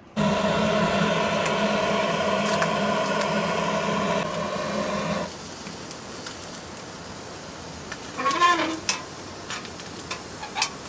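Butane torch held at the open firebox of a small camping wood stove, running with a steady, loud roar for about five seconds to light the firewood, then stopping suddenly. Later come a short vocal sound and a few light metal clicks.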